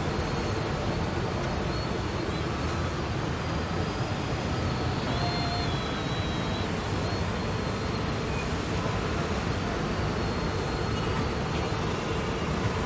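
Steady whirring noise of remote-controlled construction models at work, with brief faint whines from their small motors.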